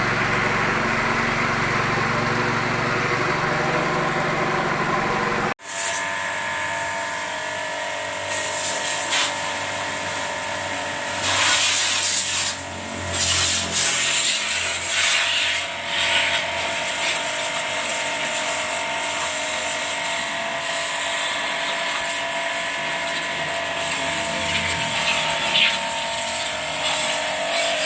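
A steady machine noise that cuts off abruptly about five seconds in, followed by a power tool running steadily, its loudness rising and dipping as it works.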